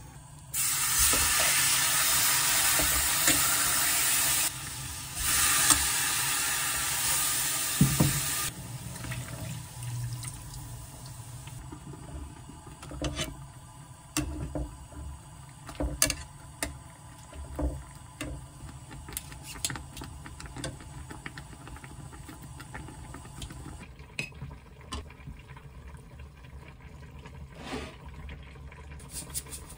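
Marinated beef slices sizzling loudly in a hot frying pan for about the first eight seconds, then quieter cooking. Scattered clicks of metal tongs against the pan and plate follow.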